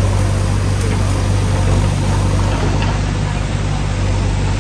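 Floodwater rushing through a washed-out road culvert: a loud, steady rushing noise with a deep rumble underneath.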